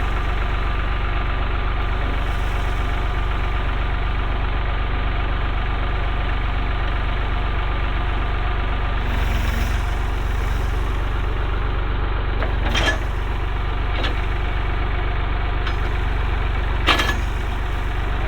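Massey Ferguson 251 XE tractor's three-cylinder diesel engine running steadily, with a few sharp knocks or clanks over it; the loudest comes near the end.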